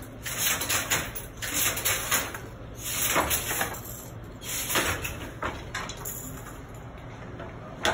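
Banarasi jacquard handloom being worked: bursts of wooden clacking and rattling from the loom about every one and a half seconds, as the weave is beaten in and the harness shifts.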